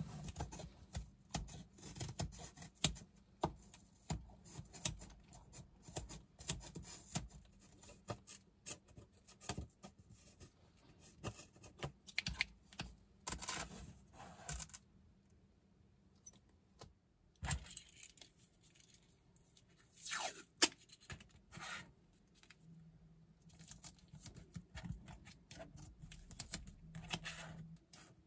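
Scissors blade scraping and clicking against the edge of a thin fibreboard pegboard in many short strokes, with a pause partway through. Near the end come light clicks of small 3D-printed plastic parts being handled.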